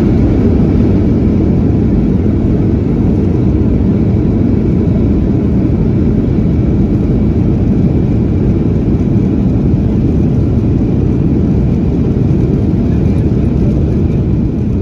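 Steady low rumble of a Boeing 737 heard from inside the passenger cabin during the landing phase, easing slightly near the end.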